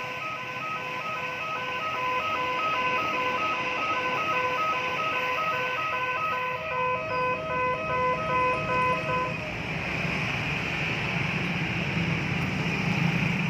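Electronic railway level-crossing warning siren sounding a rapid alternating two-note beep, which stops about nine seconds in. A low rumble follows.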